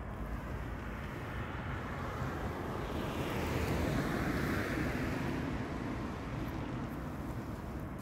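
Steady outdoor background rumble, with a broad whoosh that swells about three seconds in and fades again by about six seconds.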